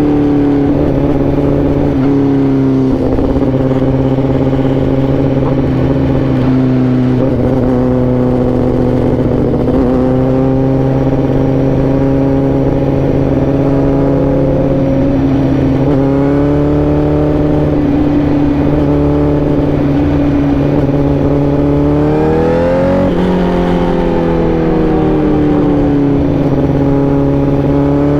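Honda CBR1000RR-R SP's inline-four engine running under way at a fairly steady pitch, with a few brief dips. About three-quarters of the way through, the revs climb quickly and then ease back down over a few seconds.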